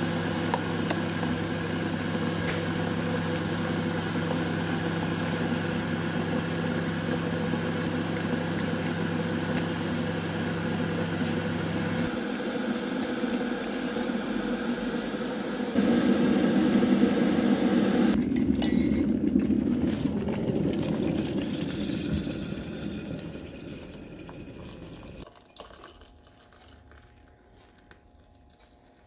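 Electric kettle heating with a steady hum and rumble that grows louder as it comes to the boil about sixteen seconds in. It cuts off about two seconds later and the bubbling dies away over several seconds.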